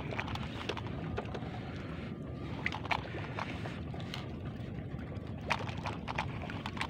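Steady wind and sea-water noise, with scattered short clicks and small splashes as a landing net on a pole is worked in the water.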